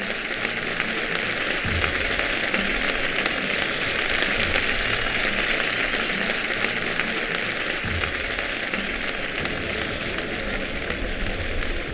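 A large crowd applauding steadily, a dense hand-clapping crackle with a couple of low thumps underneath.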